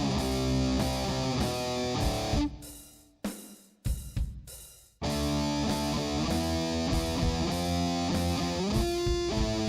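Guitar-led rock music. It breaks off about two and a half seconds in for a few short stabs, then comes back in full at about five seconds.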